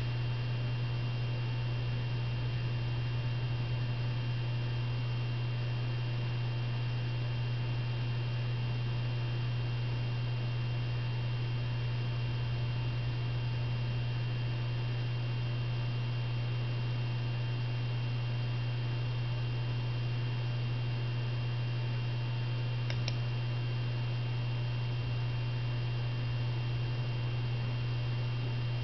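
Steady low electrical hum with faint steady higher tones, from computer or recording equipment, with one faint click about three-quarters of the way through.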